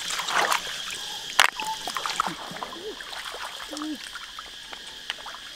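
Shallow river water splashing and trickling as hands work through it gathering freshwater mussels, with a couple of sharp knocks in the first second and a half, over a steady high insect drone.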